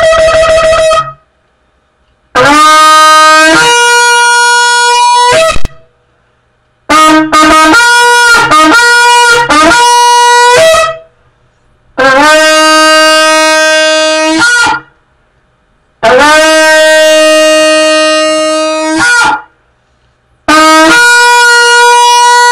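A long, twisted-horn shofar blown in loud blasts separated by short pauses. Most blasts start on a low note, jump up to a higher one and hold it for a few seconds; in the middle comes a run of short, broken notes.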